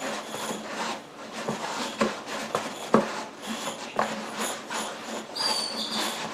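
Shoes stepping and shifting on a deflated car tire lying flat on its alloy wheel, with rubbing and several sharp knocks, and a short high squeak near the end. He is trying to push the tire bead loose from the rim with his weight.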